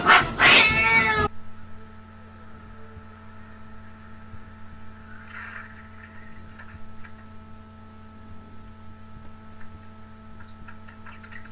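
A cat's loud, wavering yowl that breaks off abruptly after about a second, the cry of an upset cat being handled. After that only a quiet steady hum with a few faint rustles.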